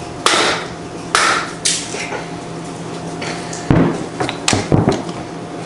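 Three sharp mallet blows in the first two seconds, hammering at a stuck part of a pressure washer pump to knock it loose. A few heavier, duller knocks follow near the end.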